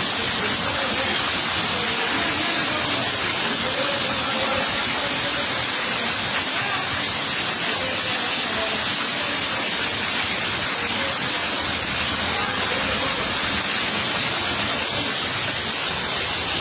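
Steady heavy rain: a dense, even hiss that does not let up.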